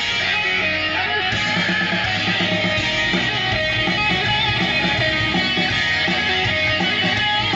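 Rock song playing from a sampler CD: guitar-led music with a driving bass line that comes in about a second in.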